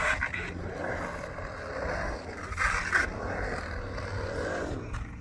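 Skateboard wheels rolling on the concrete of a skatepark bowl, the rumble swelling and fading as the board carves up and down the walls. Brief scrapes come at the start and again just under three seconds in.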